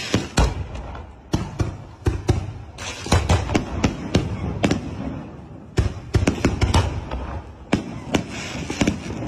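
Aerial firework shells launching and bursting overhead: dozens of sharp bangs in quick, irregular volleys, with a few short lulls, over a crackling hiss.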